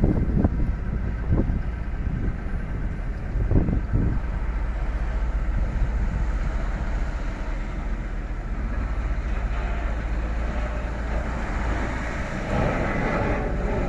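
Steady low rumble of vehicles on a snowy street, with wind buffeting the microphone in a few short gusts early on. Near the end a louder rushing noise builds as a vehicle draws close.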